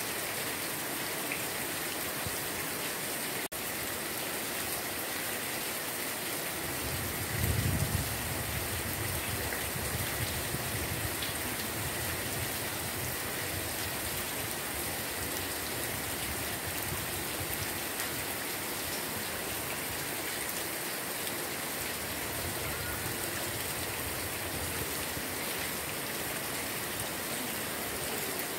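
Heavy rain falling steadily, an even hiss of rain on the ground and plants. A brief low rumble comes about seven seconds in.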